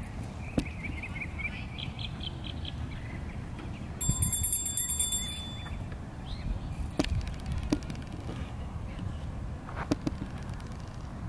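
Birds chirping. About four seconds in comes a brief, loud, high-pitched ringing lasting about a second and a half, then a few sharp clicks.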